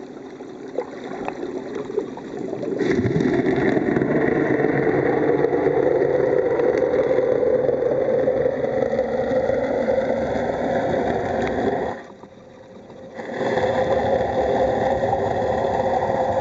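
Boat engine heard through the water, a steady drone that comes in about three seconds in, drops out for about a second near the end, then returns.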